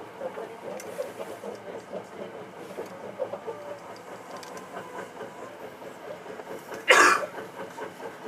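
Hankyu 9300-series electric train running on the line, heard from the front of the train: a steady running rumble with scattered small clicks from the wheels on the track. About seven seconds in, a short, loud rushing burst cuts in for under half a second.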